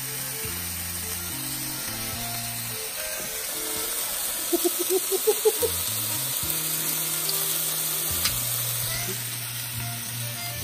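Two beef burger patties sizzling in a nonstick frying pan, a steady hiss, under background music with a stepping bass line. There is a short burst of voice sounds about halfway through.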